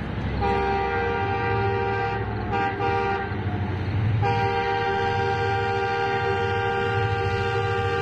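Pakistan Railways ZCU-30 diesel locomotive's horn sounding as the train approaches. A long chord blast starts about half a second in, followed by two short toots around three seconds and then a long held blast from about four seconds in. Underneath is the low rumble of the oncoming train.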